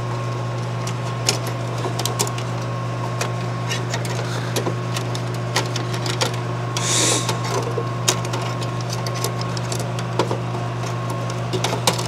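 Scattered clicks, taps and light rattles of computer parts being handled and fitted inside an HP RP5800 desktop, over a steady low hum, with a short hissing scrape about seven seconds in.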